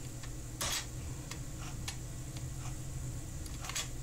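Desktop computer running with a steady low hum and scattered light clicks, the clearest about a second in and another near the end, as it boots Windows XP from a Western Digital WD800 hard drive.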